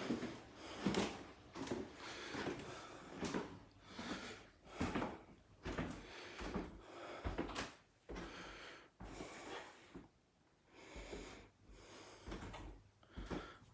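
Irregular footsteps and phone-handling knocks as someone walks through a room filming, with breaths close to the microphone.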